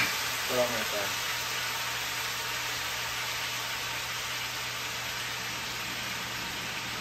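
Chicken frying in hot oil in a pot, a steady sizzling hiss, mixed with the range hood's extractor fan running with a low hum.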